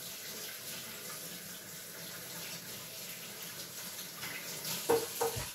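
Steady hiss of water running from a tap, with a couple of short knocks about five seconds in.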